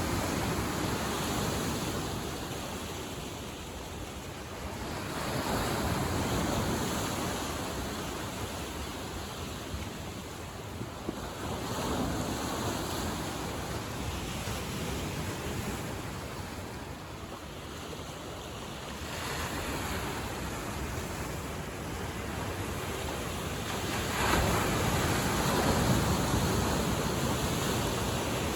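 Lake Michigan waves breaking and washing onto the shore: a noisy rush that swells and fades every five to seven seconds.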